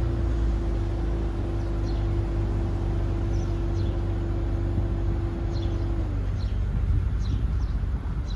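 BMW Z4 3.0si's straight-six engine idling with a steady low exhaust rumble as the car creeps out of a garage; a steady higher tone in the engine sound slides down in pitch about six seconds in. Birds chirp faintly.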